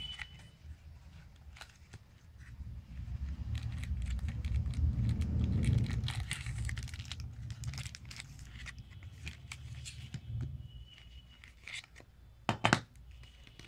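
Phone retail box and its packaging being handled and unpacked: rustling and scraping of cardboard and plastic, with a dull rumble of handling partway through and a sharp double knock near the end.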